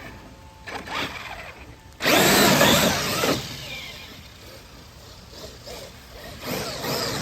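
Radio-controlled truck's electric motor whining as it accelerates hard, with spinning tyres on wet, slippery ground: a loud burst about two seconds in and another near the end.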